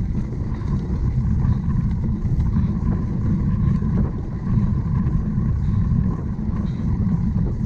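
Continuous low rumble of wind and riding noise on the microphone of a camera carried by a cyclocross bike moving over rough ground, with scattered small clicks and rattles.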